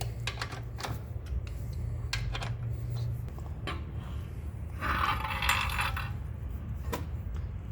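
Scattered light metallic clicks and clinks of tools and parts being handled during scooter workshop work, with a noisy scrape lasting about a second around five seconds in, over a steady low hum.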